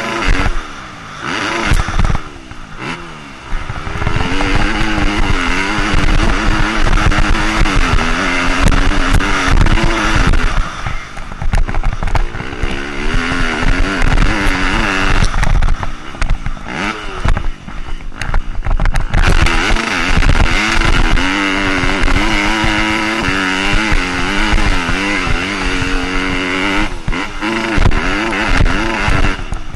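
2015 Yamaha YZ250F's four-stroke single-cylinder engine revving hard under a rider, its pitch climbing and falling through the gears. The throttle is shut off and reopened several times, with wind noise on the helmet camera.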